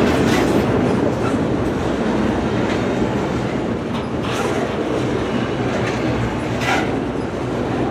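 Container cars of a long intermodal freight train rolling past: a steady rumble of wheels on rail with clickety-clack. A few brief sharp sounds stand out near the start and about four and seven seconds in.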